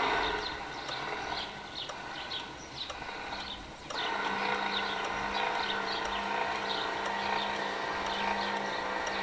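Ducati SW7000 solar swing-gate opener's electric linear actuators running steadily as they swing the two gate leaves shut; the motor tone changes about four seconds in, as the leaves reach their closed position one after the other.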